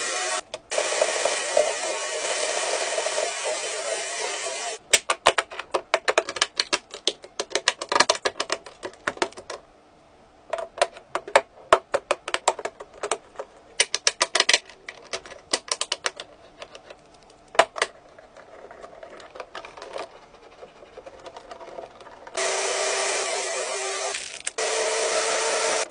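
Motorized LEGO Technic test rig running with a steady whirring hum, which stops about five seconds in. Then many sharp plastic clicks and snaps of LEGO Technic pieces being pressed together by hand, in quick clusters, for about fifteen seconds. The rig's motor hum starts again near the end.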